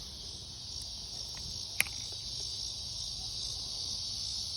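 Steady, high-pitched chorus of insects, with one sharp click a little under two seconds in.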